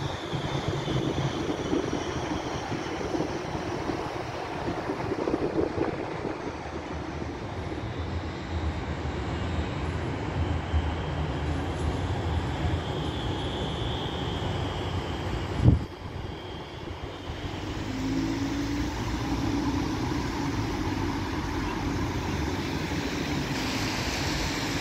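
Tram running on street track: a steady rumble with rail noise, and a single sharp knock about two-thirds of the way through.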